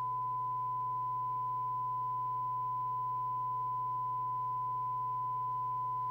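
A steady 1 kHz test tone, the signal generator's modulation received by the Harrier CBX FM CB radio and played through its speaker with the squelch open, over a low steady hum.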